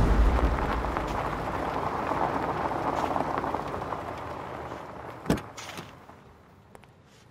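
A rushing noise fading away over several seconds, then a single sharp knock, a couple of faint clicks and near silence.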